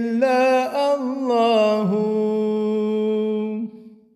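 A man singing the drawn-out final phrase of a Turkish ilahi, an Islamic devotional dhikr hymn. The single voice holds a long closing note from about halfway through, which dies away near the end.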